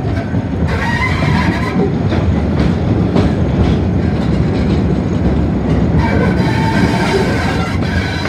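Hastings diesel-electric multiple unit running at speed: a steady low rumble with wheels clicking over rail joints. A high wheel squeal rises about a second in and again from about six seconds, as the train takes the curve.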